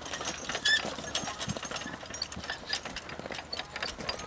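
Donkey-drawn walking plow working through the soil: irregular metal clinks and rattles from the plow and its harness.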